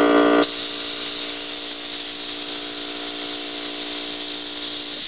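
Homemade compressor built from a window air-conditioner's compressor running with a steady hum. About half a second in the hum drops sharply, then carries on fainter until it stops near the end, over a steady hiss of compressed air as the fill line's pressure is let off before the quick-connect comes off.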